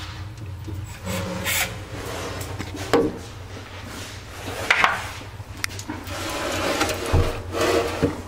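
Handling noise as a jet ski midshaft housing is shifted and turned against the inside of the hull: irregular scraping and rubbing with a few sharp knocks, over a low steady hum.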